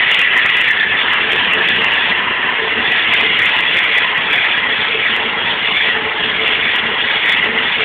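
Wood lathe running with a spinning wooden rod being sanded by hand, the sandpaper moved back and forth along the work: a loud, even hiss over a steady motor hum.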